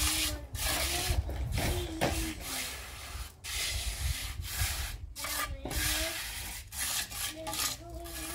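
Rough scraping strokes in an uneven run, each lasting a fraction of a second to about a second, with short breaks between them.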